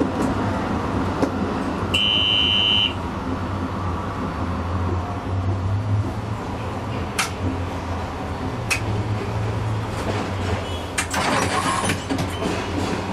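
Comeng A-class tram running, heard from the cab: a steady low motor hum with wheel-on-rail noise, swelling twice. A short high beep sounds about two seconds in, sharp clicks come near seven and nine seconds, and a burst of hiss comes around eleven seconds.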